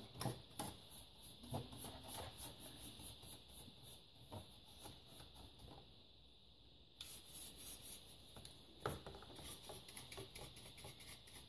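Faint, irregular brushing strokes: a paintbrush's bristles scrubbing a PLC module's circuit board wet with isopropyl alcohol, several light strokes a second.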